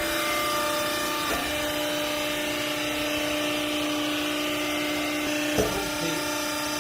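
Hydraulic baling press running with a steady mechanical hum, with a small knock early on and a sharper clunk about five and a half seconds in.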